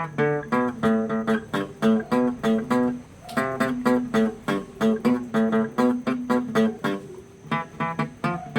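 Guitar playing a quick, even run of repeated picked notes over lower sustained bass notes, pausing briefly about three seconds in and again around seven seconds.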